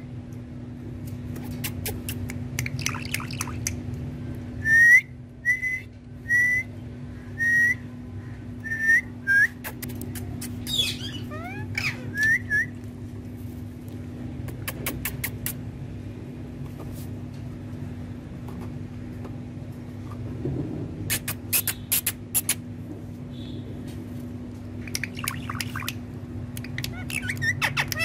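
Indian ringneck parakeet whistling: a run of about six short notes, each rising and then levelling off, under a second apart, followed by a few gliding whistles. A steady low hum runs underneath, and a few sharp clicks come later.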